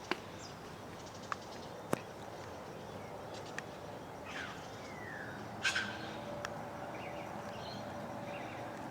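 Scattered bird chirps and calls over a quiet background, with a few sharp clicks.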